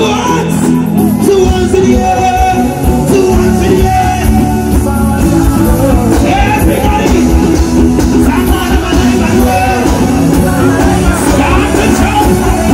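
Live soca music played loud over a big sound system: a singer over a band with a steady beat.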